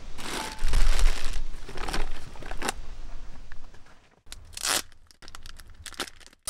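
Crinkling and tearing of handled material, in a run of short separate rustles.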